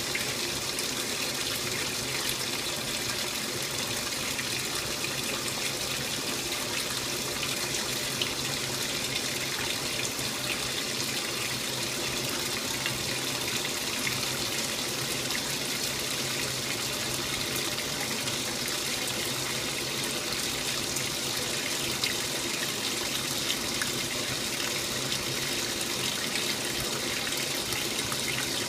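Old Magic Chef top-load washer agitating a load in water: steady churning and splashing, with a faint steady hum beneath.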